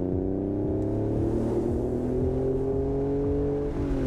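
Acura NSX V6 engine and exhaust under way, a steady note whose pitch climbs slowly as the car gathers speed, then drops briefly near the end.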